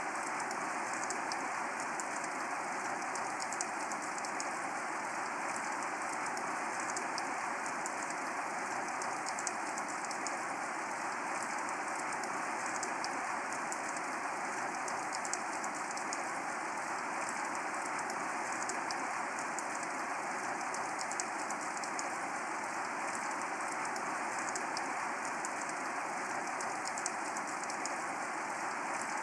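Steady rain falling, a constant even hiss with the fine, quick ticking of individual drops striking.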